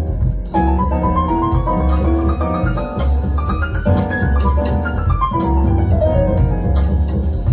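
Jazz piano trio recording played through ATC SCM12 Pro loudspeakers driven by an Anthem amplifier: piano phrases climb and fall over a deep, repeating double-bass line.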